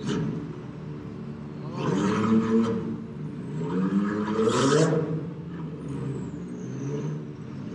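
Can-Am Maverick X3 side-by-side's turbocharged three-cylinder engine running, revving up twice: once about two seconds in and again from about four to five seconds in, with a rushing hiss on each rev.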